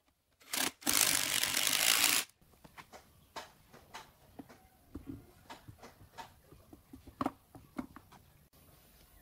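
Cordless drill-driver running, first in two short pulls and then for about a second and a half, driving a bolt into a steel plate. Then scattered light metallic clicks and knocks as an electric motor and its mounting parts are handled and set in place.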